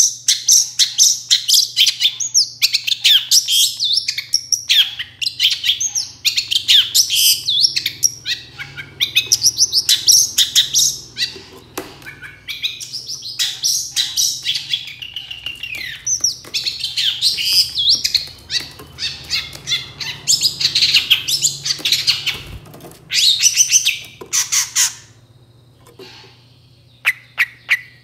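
Long-tailed shrike (cendet) singing a fast, varied, chattering song of rapid high notes, with a short lull a few seconds before the end before it starts again.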